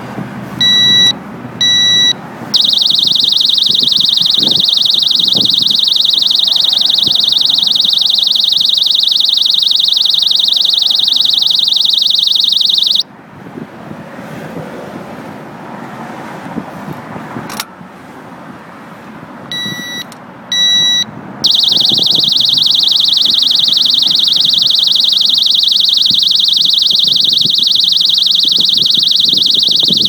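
OnGuard disc-lock alarm sounding on a motorcycle brake disc: two short warning beeps, then a loud, high-pitched continuous alarm for about ten seconds. It cuts off, and after a pause and a click come two more warning beeps and the alarm starts again.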